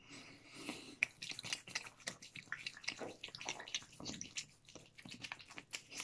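Fingertips massaging a foaming cleanser over wet facial skin: faint, quick, irregular wet clicks of the foam, with a sharper click about a second in.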